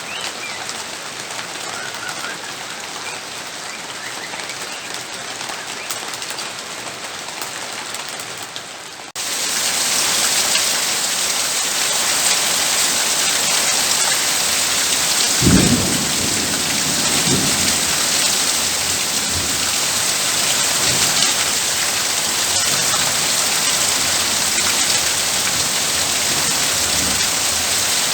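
Steady rain falling on a house roof, which about nine seconds in jumps abruptly to heavier, louder rain. About halfway through a crack of thunder sounds, followed by a few fainter low rumbles.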